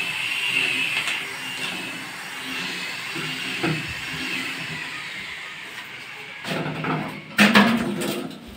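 Handling and movement noise: rustling with scattered knocks, then a cluster of louder knocks and scrapes from about two-thirds of the way in as someone climbs onto a kitchen counter. A faint wavering high whine runs through the first few seconds.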